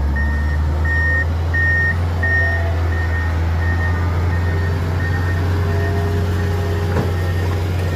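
A truck's reversing alarm beeping steadily a little under twice a second, growing fainter after a few seconds, over the steady low drone of its engine. A single sharp knock near the end.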